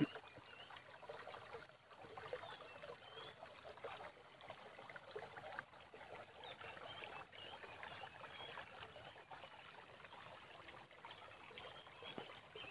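Faint trickling, flowing water, with small high chirps scattered through it.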